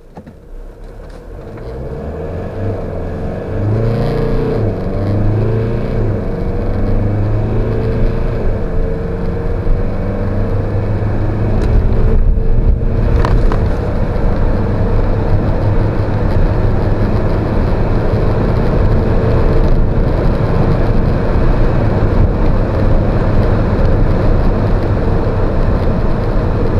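Fiat Ducato's 2.2 Multijet 3 four-cylinder turbodiesel accelerating hard from standstill, heard inside the cab. The engine pitch climbs and drops back with each upshift of the 9-speed automatic, then settles into a steady drone mixed with road and wind noise as speed rises.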